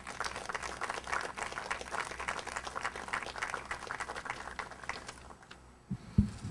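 Small crowd applauding, a dense patter of hand claps that thins out and stops about five seconds in. A few low thumps follow near the end.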